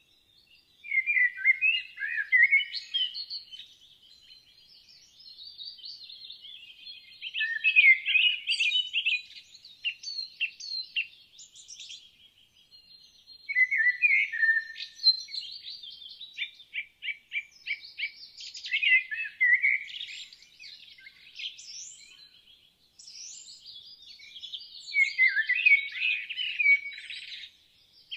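A songbird singing: bursts of varied chirps and warbles every few seconds, with a fast trill of quick repeated notes near the middle.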